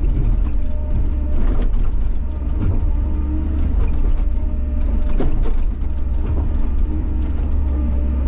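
Bobcat excavator engine running steadily under load with a hydraulic whine, while the bucket teeth scrape and crack through frozen ground, giving scattered sharp knocks as big slabs of frost break loose.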